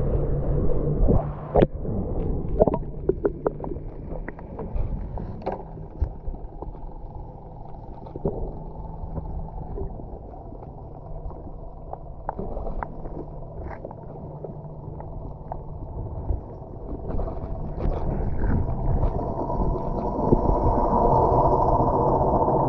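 Muffled underwater sound picked up by a submerged camera: a steady low hum of boat motors carried through the water, with knocks against the camera housing in the first few seconds. The hum swells into a louder whine near the end.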